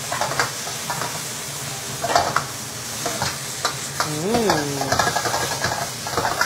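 Minced pork with chili bean paste sizzling in a hot wok while a spatula scrapes and tosses it in quick strokes. A short tone rises and falls about four seconds in.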